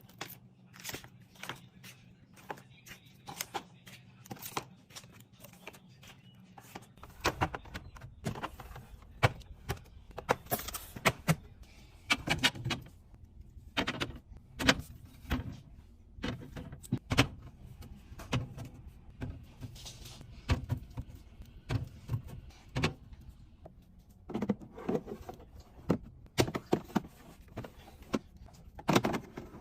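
Irregular clicks, taps and knocks of packaged food and containers being handled and set down while restocking a fridge, over a low steady hum.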